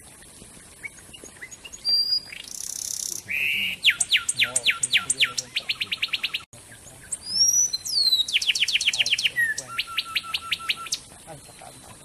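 Wren singing: after a short buzzy note, two loud phrases of fast repeated sweeping notes, the second opening with a sliding whistle about halfway through.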